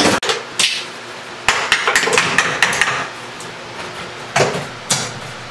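Irregular series of sharp hammer strikes knocking out ceramic wall tile around a bathtub, with a quick cluster of blows about a second and a half in and two more strikes near the end.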